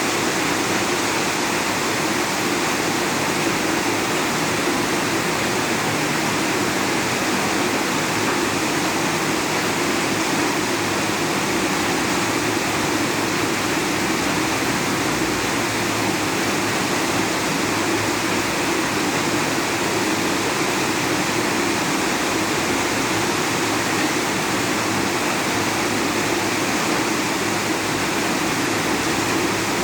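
Heavy rain pouring steadily: an even, unbroken hiss of downpour.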